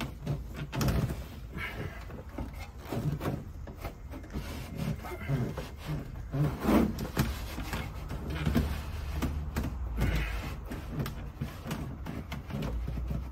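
Hands pressing and smoothing jute sound-deadening felt onto the inside of a car's metal roof panel: irregular soft thumps and rubbing.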